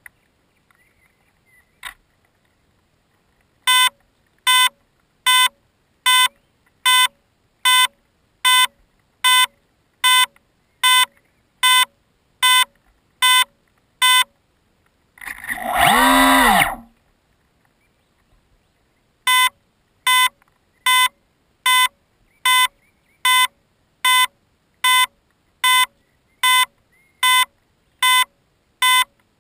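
Electronic beeper sounding short, regular beeps about one every 0.8 s. About halfway through, a louder warbling tone sweeps up and down in pitch for about a second and a half, and then the beeping resumes.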